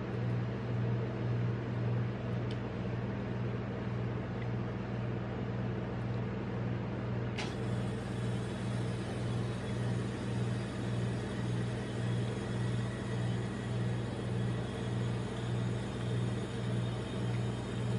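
The refrigeration compressor of a rolled-ice-cream machine's cold plate humming steadily, with a low tone that swells and fades evenly about one and a half times a second. One sharp click about seven seconds in.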